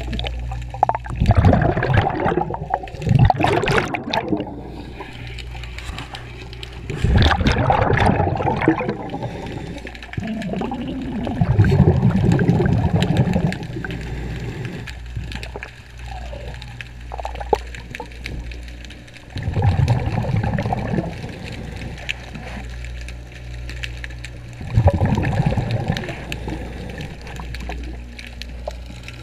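A diver's underwater breathing: a loud gurgling rush of exhaled bubbles every few seconds, about five in all, over a steady low hum.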